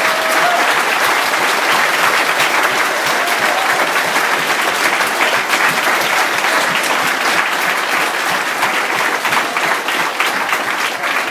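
Large audience applauding, many hands clapping steadily, easing off a little near the end.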